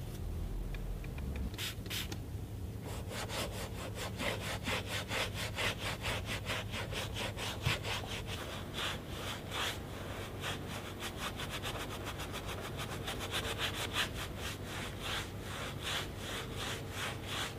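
Detailing brush scrubbing a car's plastic interior pillar trim in rapid back-and-forth strokes, about four a second, starting about three seconds in.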